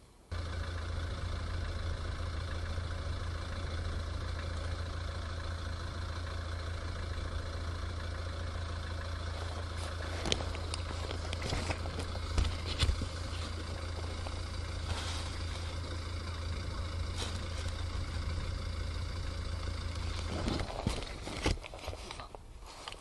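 Mount Etna's lava fountain erupting: a steady low roar with sharp bangs from explosions, several of them from about ten seconds in. The roar stops near the end, after a last cluster of bangs.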